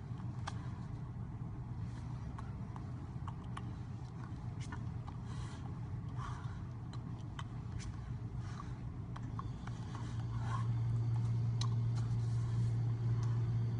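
A steady low hum that gets louder about ten seconds in, with scattered light clicks and taps over it.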